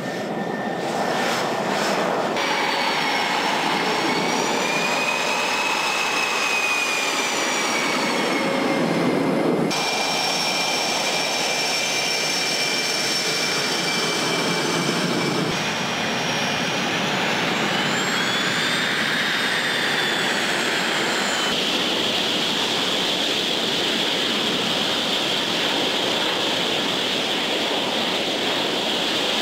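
Fighter jet engines (F-16 and F-15) running as the jets taxi: a steady rushing noise topped by a high turbine whine that slowly rises and falls in pitch. The sound changes abruptly several times as shots change.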